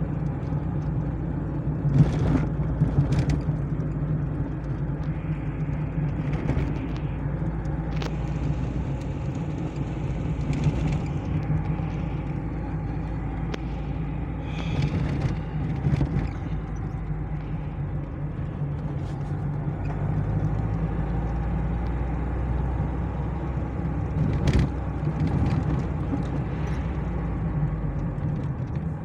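Car engine and road noise heard from inside the cabin while driving slowly through town. There is a steady low rumble, broken by a few sharp knocks or rattles.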